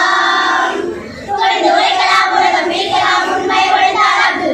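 A group of children singing together in unison, holding long notes, with a short break about a second in before the next phrase.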